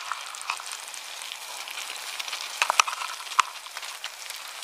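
Creamy gratin sauce bubbling and sizzling in a cast-iron skillet, with a handful of sharp pops.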